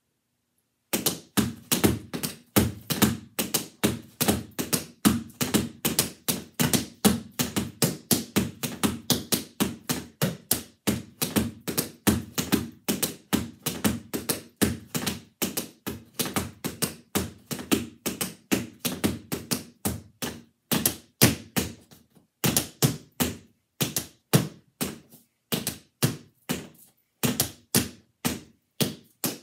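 Tap shoes' metal taps striking a hard floor mat in quick, rhythmic runs of many taps a second, with heel and toe strikes mixed. The tapping starts about a second in and stops briefly about three quarters of the way through before picking up again.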